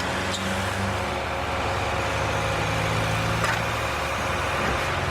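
Worksite machinery engine running steadily over a constant wash of construction-site noise. A low hum comes in near the start and fades out about four seconds in, with a few light clicks.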